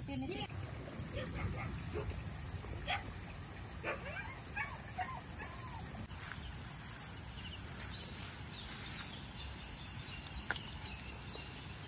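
Steady chorus of crickets and other insects, a continuous high-pitched trill, with a few short chirps and calls and a low background rumble.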